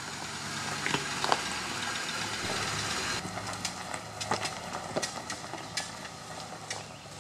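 A 2006 Ford Explorer creeping past over a rocky dirt trail: its engine runs low and steady while the tyres crunch and click over loose stones. It is loudest in the first few seconds and fades as the SUV pulls away.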